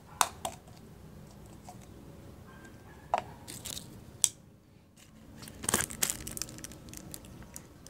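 Plastic being handled: scattered light clicks and taps, with a burst of crinkling about six seconds in.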